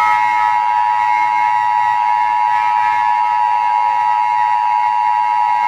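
Emergency Alert System attention signal: a loud, steady two-note electronic tone held unbroken. It is the alarm tone that announces an emergency alert message is about to follow.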